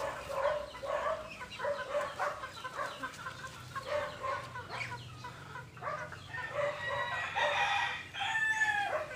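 Chickens clucking in short repeated calls, with a rooster crowing in one long call over the last two or three seconds.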